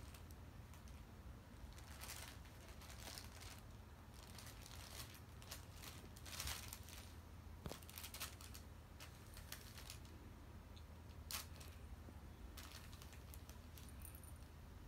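Faint, scattered rustling and crinkling of a nylon pop-up cat tunnel as a cat moves in and around it, with a few sharp clicks.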